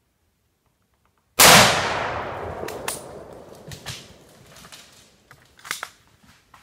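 A single loud gunshot about a second and a half in, its report echoing and dying away over two to three seconds. Faint scattered snaps and rustles follow.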